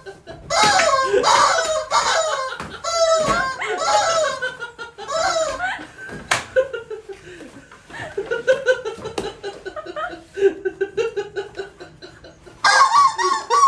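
Rubber chicken squeeze toys squawking again and again in wavering, high-pitched squeals, with a sharp knock about six seconds in.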